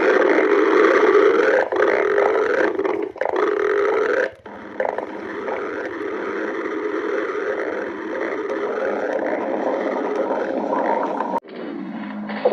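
Stomach growling: long, loud, drawn-out gurgling rumbles that waver up and down in pitch, cutting off abruptly a couple of times, about 4 s in and again near the end.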